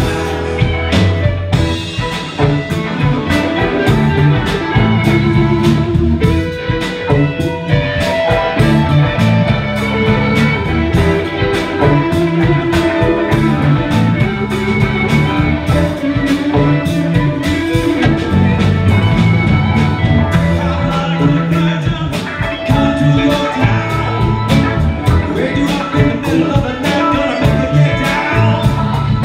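Live amplified band playing: electric guitars, fiddle, drum kit and keyboards over a steady drum beat.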